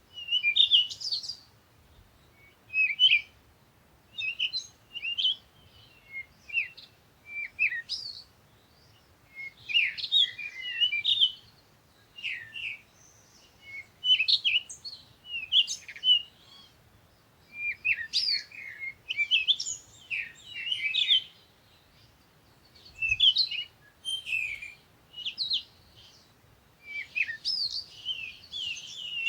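Several small birds chirping and twittering in short, quick phrases, one after another every second or two with brief pauses between.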